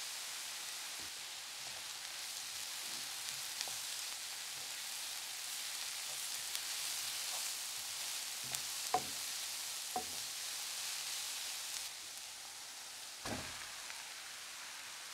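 Grated carrots and chopped onion sizzling steadily in a frying pan, stirred with a wooden spoon that knocks against the pan a couple of times. About 13 seconds in, a lump of raw ground beef drops into the pan with a soft thud and the sizzle eases a little.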